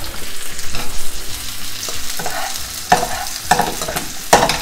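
Chorizo strips, onions and green chillies sizzling in a non-stick frying pan while being stirred with a spatula, which scrapes against the pan in several louder strokes.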